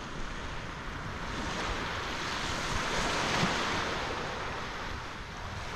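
Surf washing up the beach, swelling to its loudest about three seconds in and then easing, with wind noise on the microphone.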